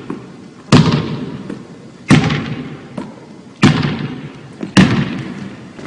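Basketball bouncing on a hardwood gym floor: four loud bangs about a second and a half apart, each trailing off in the big hall's echo.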